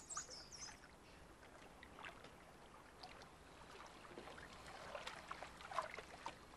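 Faint splashing and lapping of pool water as a dolphin moves at the surface, with scattered small splashes that grow a little busier near the end. A few brief high chirps sound right at the start.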